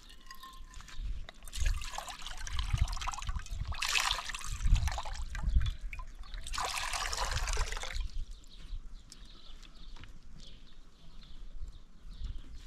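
Liquid pouring in three spells of a second or two each, the last ending about eight seconds in, with low thuds beneath the first two.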